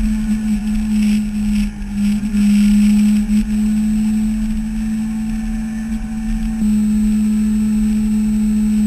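Yamaha R6 inline-four engine droning steadily at cruising speed, with wind rush that swells and fades in the first few seconds. The drone's pitch shifts slightly about two-thirds of the way through.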